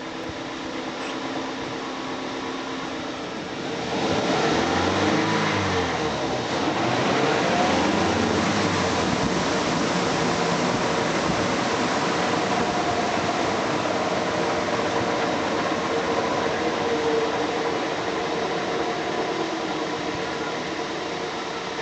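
Front-wheel-drive car running in gear on a jack, its raised front wheel spinning on a newly replaced hub bearing, with no bearing hum. About four seconds in it speeds up and grows louder, the pitch rising and falling for a few seconds, then it runs steadily.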